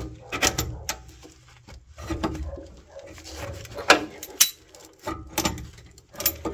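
Irregular metallic clicks and scrapes of a hand tool prying at the spring tension clip on a car's rear brake backing plate. The clip is stubborn and does not come free.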